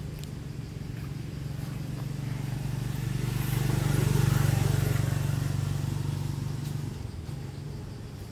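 A motor vehicle passing by: a steady engine hum with a hiss above it grows louder to a peak about halfway through, then fades away.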